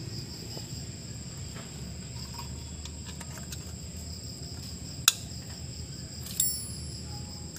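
Crickets chirping steadily, with one sharp metallic click about five seconds in and a smaller click a little over a second later.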